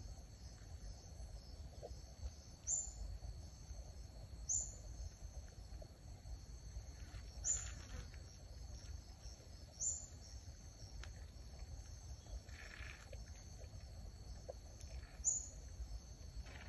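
Steady high-pitched insect chorus like crickets or cicadas, with five short, louder high chirps spaced a couple of seconds apart, over a low background rumble.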